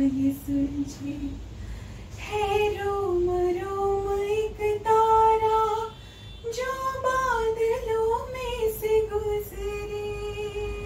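A woman singing a Hindi film song unaccompanied, in long sustained notes that slide between pitches. She breaks off briefly about two seconds in and again near six seconds, and ends on a long held note.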